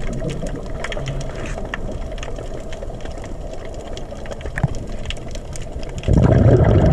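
Underwater ambience picked up by an action camera in its housing: a muffled low rumble with many scattered sharp clicks and crackles, then a sudden louder rush of water noise about six seconds in.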